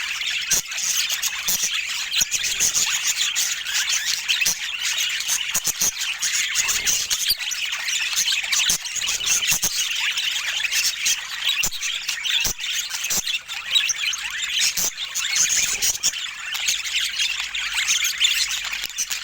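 Budgerigars chattering and squawking without a break: a dense jumble of high chirps and warbles, with scattered sharp clicks.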